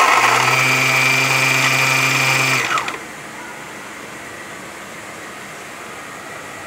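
Baratza Vario electric coffee grinder running steadily with a high whine, then its motor stopping about two and a half seconds in with a short falling whine as it spins down. A quieter steady hum remains afterwards.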